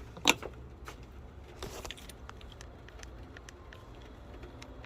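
A sharp click about a quarter second in, then a softer click and scattered faint ticks of small hard parts being handled.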